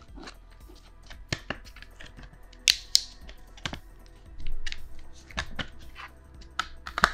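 Clear plastic clamshell tray crackling and clicking as a memory module is pried out of it by hand, with two sharp snaps about three seconds in.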